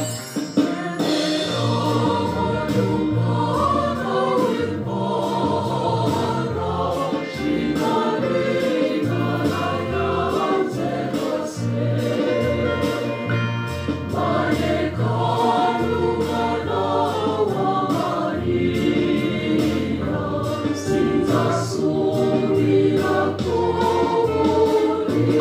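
A choir singing a Christian gospel song with instrumental backing and a moving bass line.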